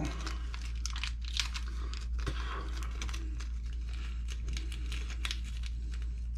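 Crinkling and quick light clicks of a small plastic parts bag and plastic ESC cage pieces being handled while screws are picked out, over a steady low hum.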